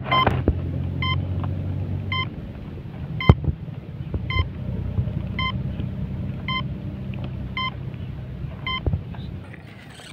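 Brushless motor driven by a 30 A ESC giving short, regular beeps, about one a second, after the LiPo battery is plugged in, over a steady low rumble. A few sharp knocks from handling the foam airframe, the loudest about three seconds in.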